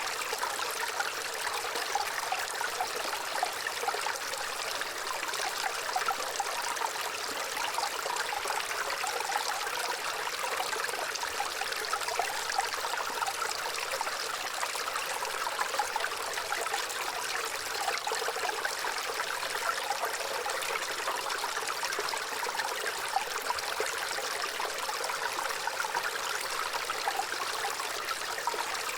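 Gentle running water trickling and babbling steadily, a light, hissy stream sound with little low rumble.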